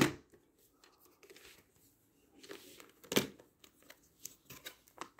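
A plastic VHS clamshell case being handled and opened: one sharp click at the start, then scattered light clicks and rustles, the strongest about three seconds in.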